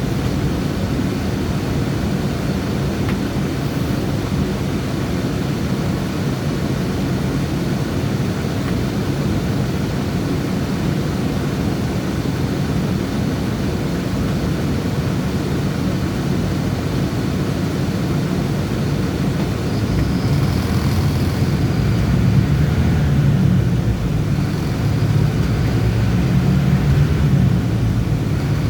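Bus engine and road noise heard from inside the moving bus: a steady low rumble that grows a little louder about two-thirds of the way through.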